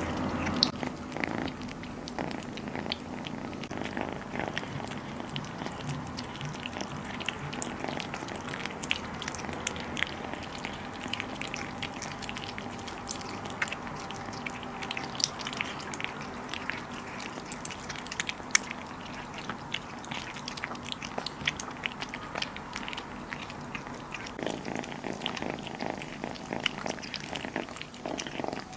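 Two kittens chewing and tearing slices of raw beef, with many quick, irregular wet clicks and smacks of biting. A low steady hum runs underneath.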